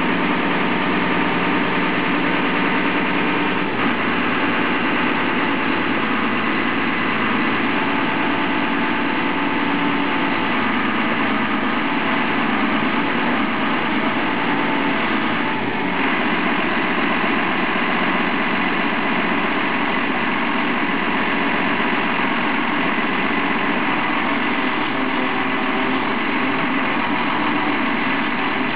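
Volvo BM 6300 backhoe loader's diesel engine running steadily at a constant speed, with no revving.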